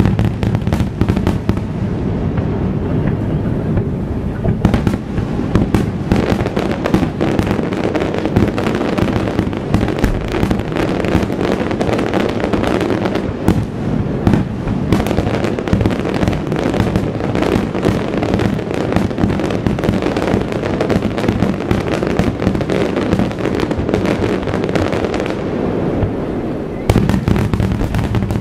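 Continuous barrage of aerial firework shells bursting, many bangs a second overlapping with no break. A louder burst comes near the end.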